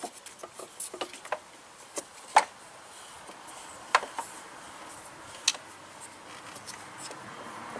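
Small handling clicks and taps as rubber fuel hose is worked around plastic lines and fittings in a car's engine bay, with three sharper clicks spread through.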